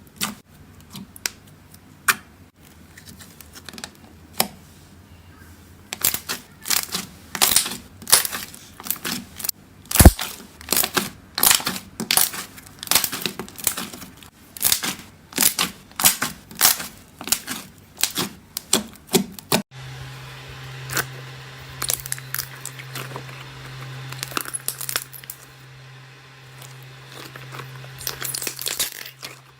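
Slime being squeezed and poked, giving a run of sharp clicks and crackles. About twenty seconds in, the clip changes to softer, denser crackling over a steady low hum.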